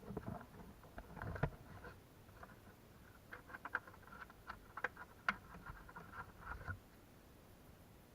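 Faint, irregular clicking and scraping of small hand work, which stops about seven seconds in.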